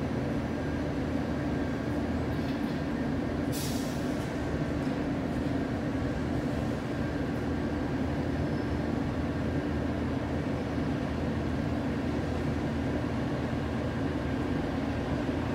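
Steady low hum of an idling large vehicle, with one short hiss of air about three and a half seconds in.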